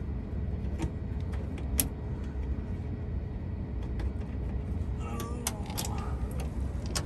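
Metal latches on a bus's battery-compartment door clicking and rattling as they are unfastened by hand, with a cluster of clicks and short metallic scrapes from about five seconds in, over a steady low rumble.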